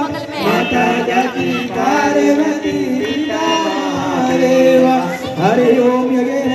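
A group of voices singing a devotional song together, with held, sliding notes.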